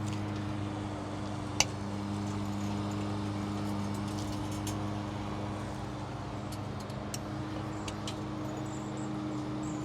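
A steady low mechanical hum from a running machine, with one sharp click about one and a half seconds in and a few faint ticks later.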